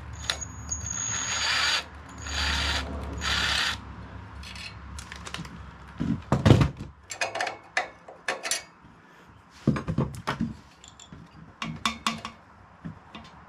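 Metal clicks and knocks of hand work on a Tecumseh OHV engine's valve gear, as springs and keepers are fitted on the rocker arm housing; the loudest knock comes about six and a half seconds in. Three short bursts of rustling hiss come first, in the opening four seconds.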